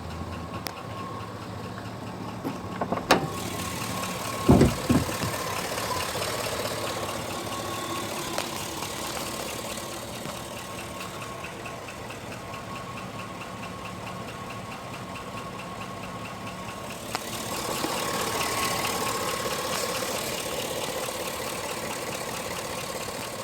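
2005 GMC Sierra pickup engine running with a knock, a fast, even ticking through its idle. A few loud thumps come between about three and five seconds in, and the engine gets louder from about seventeen seconds in.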